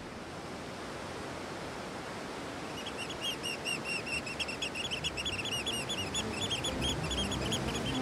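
Steady coastal ambience of wind and surf-like rush, with a bird chirping in a rapid run of short calls from about three seconds in.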